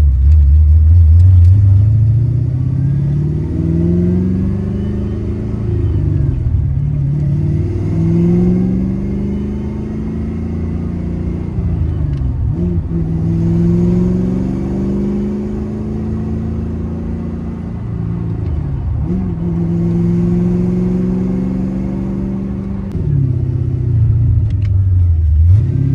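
Fox-body Ford Mustang's engine pulling through the gears while driving. The revs climb and fall back with each shift and hold steady for stretches between. This is the car's T5 manual gearbox, which the owner says makes a terrible noise every time it goes into second gear.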